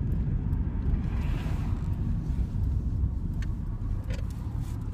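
Steady low rumble of a vehicle heard from inside its cabin, with a few faint clicks.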